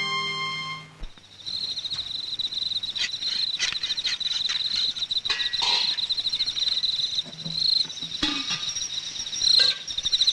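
Crickets chirping steadily in a fast, even pulse, with a few scattered knocks and clinks. A held music note fades out in the first second.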